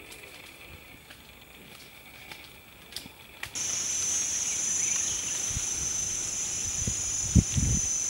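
Quiet forest ambience with a few sharp clicks, then a loud steady high-pitched insect drone starts abruptly about three and a half seconds in. Near the end, a few low thuds come from a man climbing a tree trunk.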